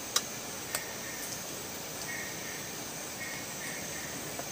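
Steady chirring of night insects such as crickets, with two light clicks in the first second.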